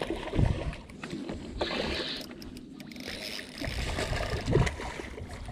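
A hooked fish splashing and thrashing at the water's surface right beside the boat, with low knocks and rubbing of clothing against the body-worn camera.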